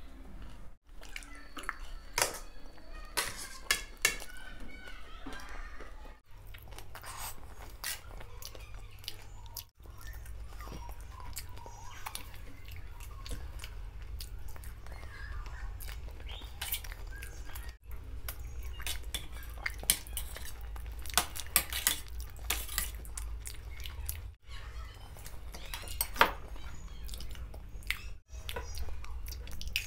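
Close-miked eating: wet chewing of dahi golgappa (puris in yogurt), with a steel spoon clicking and scraping on a steel plate. There are a few brief dropouts where the recording is cut.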